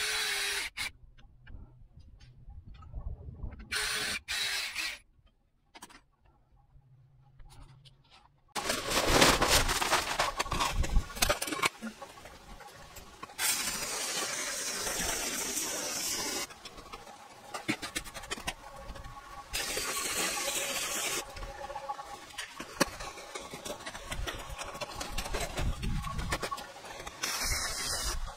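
Scattered light clicks and knocks, then from about a third of the way in a steady rush of water from a garden hose pouring into a wheelbarrow while its load is stirred, in short clips cut one after another.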